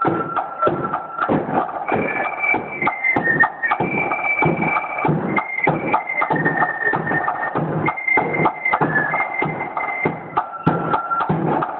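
Marching band snare drums playing fast, rolling rudiments with a bass drum beating under them, and a high single-note melody line carrying over the drumming.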